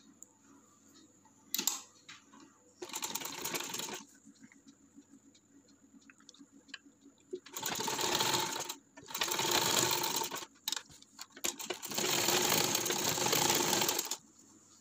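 Sewing machine stitching a seam through cotton fabric in four short runs: one of about a second near three seconds in, then three longer runs close together in the second half, with brief stops between.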